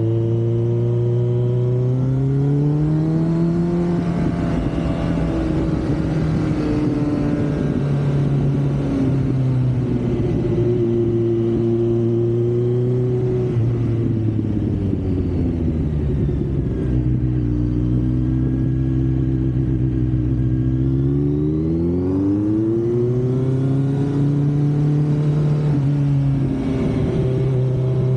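Kawasaki Z900's inline-four engine and exhaust under way. The pitch rises as it accelerates a few seconds in, drops off about halfway through, then climbs again a few seconds before the end. A hiss of wind on the microphone sits under it.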